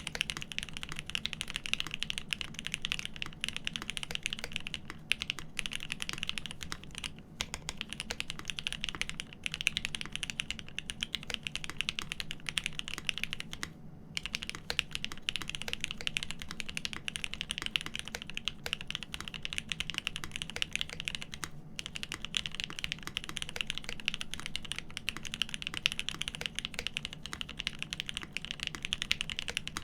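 Typing on a custom mechanical keyboard, a GEON F2-84 with lubed Cherry Top SP Star switches on 62g springs and an aluminium plate: fast, continuous keystrokes with a few brief pauses.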